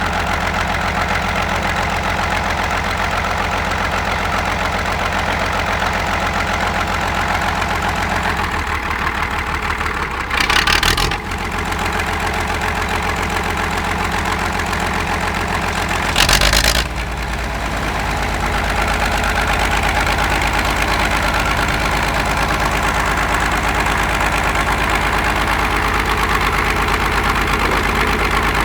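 Heavy engine running at idle with an even knocking beat. Twice, about a third and a little over half way through, a brief loud rush of noise cuts over it, and after the second one the engine runs a little louder.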